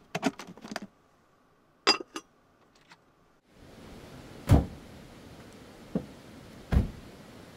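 Sharp plastic clicks as a corded timer dial is set for a delayed start, then near silence. Then a steady outdoor hiss with two heavy thumps a couple of seconds apart and a lighter knock between them, fitting a van's rear doors being shut.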